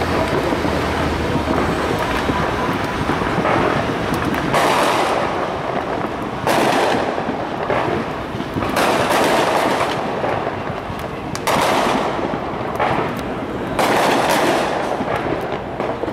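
Many distant fireworks and firecrackers going off at once: a continuous rumbling crackle of bangs that swells louder every two to three seconds.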